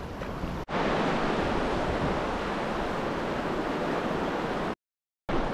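Steady rush of surf and wind, with wind blowing on the microphone. It cuts in abruptly under a second in and drops out completely for about half a second near the end.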